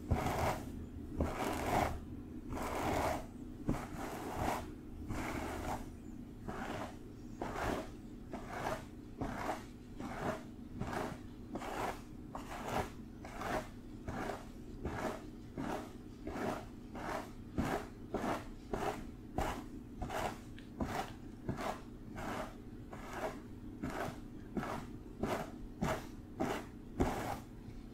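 Fingertips scratching through long hair in repeated rustling strokes, slower at first, then quickening to about one and a half strokes a second.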